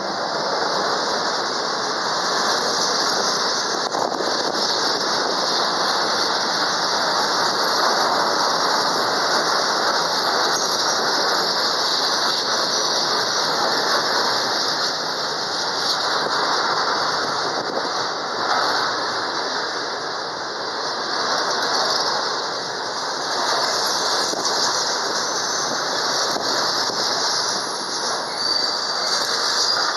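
Container freight wagons rolling past at close range: steady wheel-on-rail rolling noise with a strong high-pitched screech of steel wheels on the rails.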